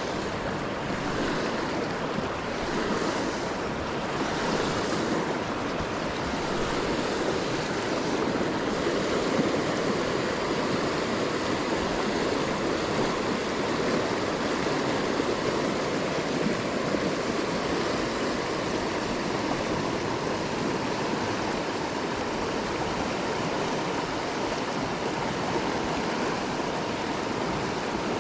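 River water rushing steadily around the wading angler, an even, continuous rush with no breaks.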